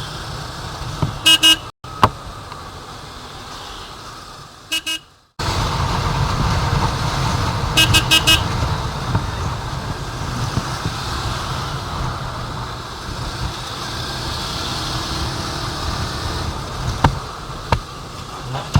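Yamaha R15 motorcycle riding through traffic, its engine and the road making a steady low rumble, on a freshly replaced chain and sprocket set. Short bursts of three or four vehicle horn beeps come about a second in and again around eight seconds in.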